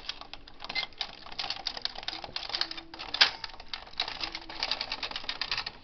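Carriage of a Bond Classic Plus knitting machine pushed by hand across the needle bed to knit a row, a rapid rattle of small clicks as it rides over the needles, with one louder click about three seconds in.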